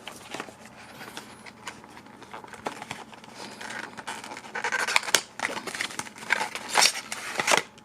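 Cardboard trading-card deck box being opened and handled: faint clicks and rustles, then louder scraping and rustling of cardboard and paper over the last three seconds.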